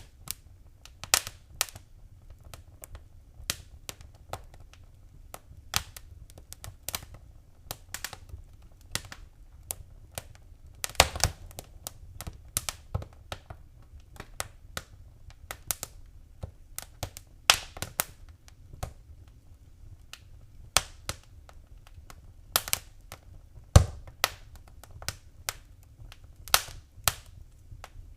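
Fireplace fire crackling, with sharp pops at irregular intervals, some several a second, over a low steady rumble. One pop about three-quarters of the way through is louder than the rest.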